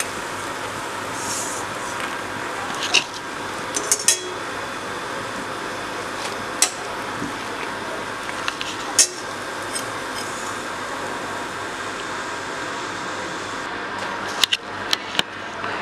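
Scattered sharp clinks and taps from a stainless steel serving bowl being handled: one, a quick cluster about four seconds in, a few singles, and several close together near the end. A steady hiss runs underneath.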